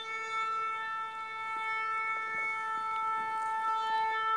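A shofar blast: one long, steady note held at the same pitch without a break.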